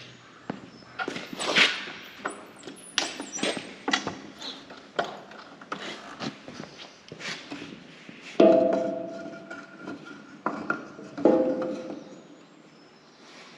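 Irregular metal knocks and clatter from farm equipment and tools being handled, with two loud ringing metal clangs, about eight and eleven seconds in.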